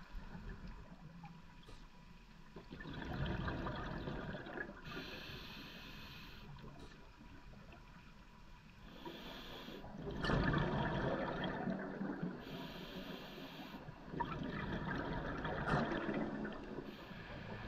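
Scuba diver breathing through a regulator underwater: short hissing inhalations alternate with longer, louder rushes of exhaled bubbles, three exhalations in all.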